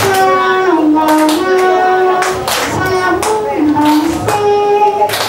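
Amateur singing into a microphone: a slow melody with long held notes, and people clapping along in time.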